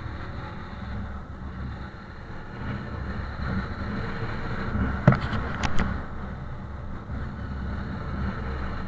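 Honda CG 150 Titan's single-cylinder four-stroke engine running steadily on the move, with wind rushing over the microphone. A few sharp clicks about five seconds in.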